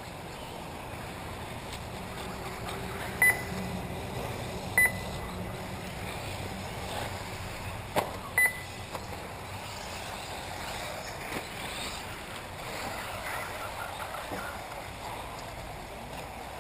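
Steady outdoor rushing noise with short, loud, high electronic beeps three times, the last one doubled, and a sharp click about eight seconds in.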